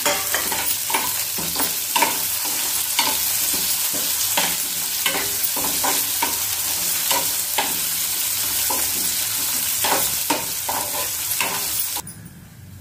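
Onion, garlic and chana dal sizzling in hot oil in an aluminium kadhai, with a steel spoon stirring and scraping against the pan in repeated clinks. The sizzle and stirring drop away suddenly near the end.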